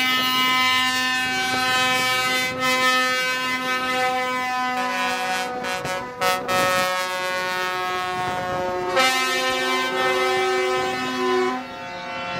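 Truck air horns blowing long, held blasts, several tones sounding together as a chord, with the fullest blasts at the start and again about nine seconds in.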